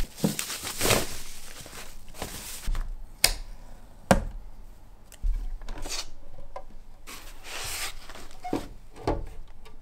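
Unpacking a filament dryer: a foam wrap and packing rustling against its plastic housing, with a few sharp clicks and knocks as the clear plastic lid is taken off and a foam insert is lifted out. The loudest knock comes about four seconds in.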